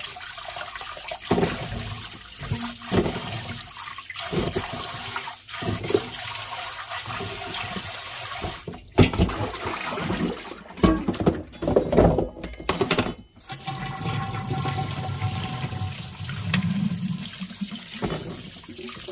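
Tap water running steadily into a sink over ginger root being washed by hand, with irregular splashes and knocks as the pieces are handled. The running water breaks off briefly twice.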